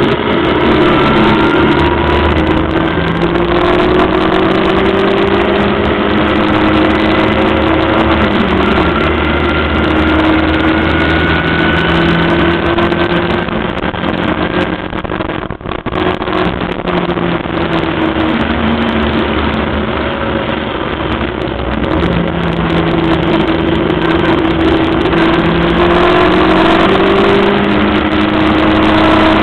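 1300cc engine of a Locost clubman race car at racing speed, revving up through the gears again and again, its pitch climbing and then dropping back at each change, with a brief lift off the throttle about halfway through. A heavy rush of wind and road noise runs under the engine.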